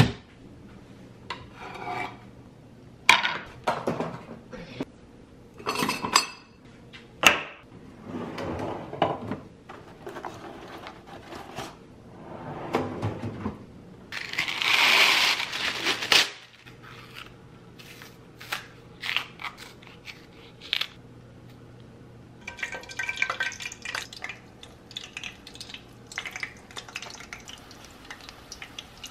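Kitchen handling sounds: a cabinet door knocking shut at the start, then scattered knocks and clatters of dishes, pans and utensils. A hiss lasts about two seconds near the middle, and a stretch of fine crackling comes near the end.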